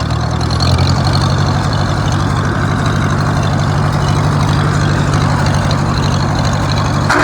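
Farmall H tractor's four-cylinder engine running steadily, its note getting stronger and louder about a second in. A short louder noise comes in near the end.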